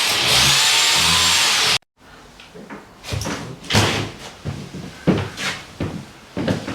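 A power tool cutting a chase into the wall for socket boxes runs loud and steady, then stops abruptly about two seconds in. After it come irregular sharp knocks and bangs as the chase is worked out.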